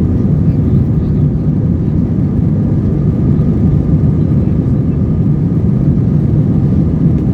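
Cabin noise of an Airbus A321-231 at takeoff thrust: its IAE V2500 turbofans and the airflow make a steady, loud, low rumble, with faint steady tones higher up.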